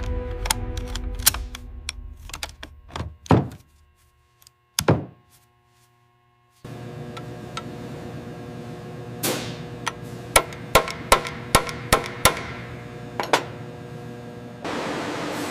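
Sharp metallic clicks and clunks of a brass trigger assembly being handled and seated in a steel weapon receiver: a few scattered clicks and a heavier knock, a pause of near silence, then a quick run of about nine clicks over a steady hum.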